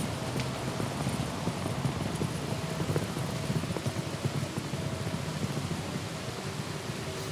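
Outdoor ambience: a steady low rumble of noise like distant traffic, with faint brief humming tones now and then.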